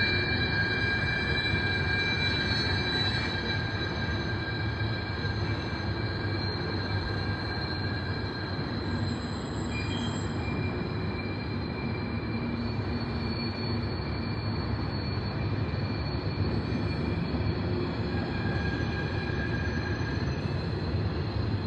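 Loaded coal hopper cars of a freight train rolling past with a steady rumble of wheels on rail. High-pitched wheel squeal comes and goes over it, strongest about the first three seconds.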